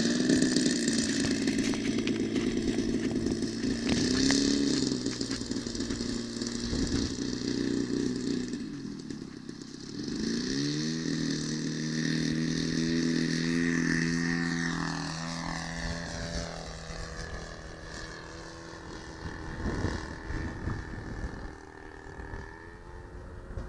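Small engine of a radio-controlled model airplane running, easing off briefly and then revving up sharply about ten seconds in. Its pitch then falls as it flies past, and the sound fades toward the end.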